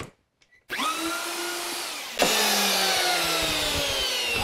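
Festool plunge router starting up with a short rising whine for its final pass through the acrylic pickguard. About two seconds in, a louder hiss of a compressed-air blow gun clearing the acrylic dust joins, while the router's whine falls slowly in pitch as it winds down.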